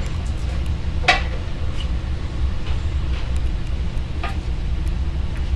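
Two knocks while the compressor and its dolly mount are handled, a sharp one about a second in and a lighter one about four seconds in, with a few faint ticks, over a steady low rumble.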